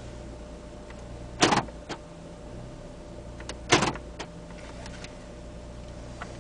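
Peugeot 307 idling with a steady low hum, broken twice by a short sharp clunk about two and a half seconds apart, each followed by a fainter click.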